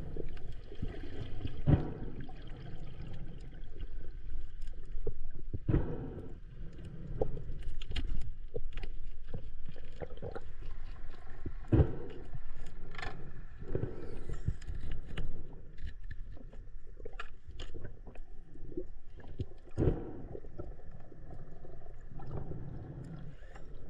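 Water sloshing and splashing, with irregular knocks and bumps.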